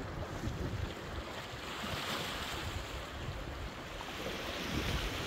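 Wind buffeting the microphone over the wash of sea surf against the rocks, the surf swelling about two seconds in and again near the end.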